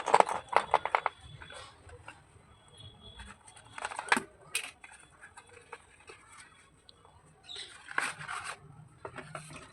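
Slate pencils clicking and rattling against one another as they are handled: a quick run of clicks at the start, then scattered taps, with a brief rustling clatter near the end.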